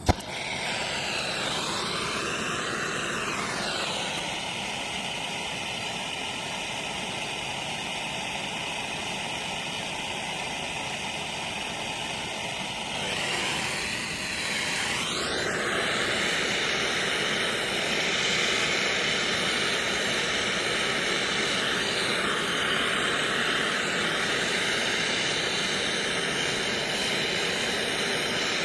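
Plumber's hand torch lit with a sharp click, then burning with a steady hissing roar while heating a fluxed brass drain tailpiece for soldering; the tone shifts briefly twice as the flame is moved or adjusted.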